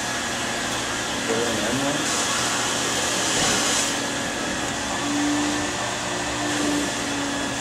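Carpet-cleaning extractor's vacuum drawing through a hand tool passed over a carpet sample: a steady rushing hiss that grows louder and hissier between about two and four seconds in, with a humming tone that comes and goes near the end. The tool is extracting an oil stain that has been dissolved with solvent gel and emulsified.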